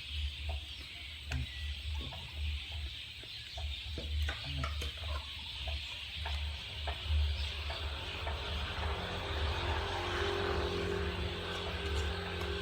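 A dog eating, with scattered irregular clicks and crunches of chewing over a steady low rumble and hiss. A steady low hum comes in about two-thirds of the way through.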